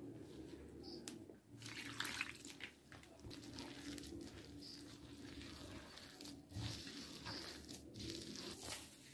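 A hand mixing and kneading damp maize flour in a clay platter: faint, irregular squishing of wet flour and scraping against the dish.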